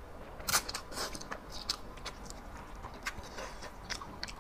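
A person slurping and chewing instant fire noodles, close to a lapel mic, in a string of short wet bursts; the loudest slurp comes about half a second in.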